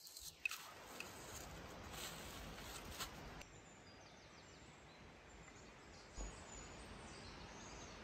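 A metal spoon stirring in a mug, clinking sharply against its sides for the first few seconds. After that comes faint outdoor quiet with a few faint bird chirps.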